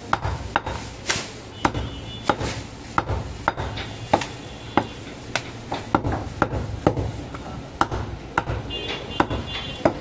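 Heavy butcher's knife chopping through goat ribs on a wooden log chopping block: sharp chops about twice a second, each landing through meat and bone into the wood.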